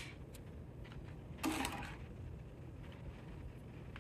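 Hand trowel working wet mortar into the joints between bricks: a few faint clicks and one short scrape about a second and a half in.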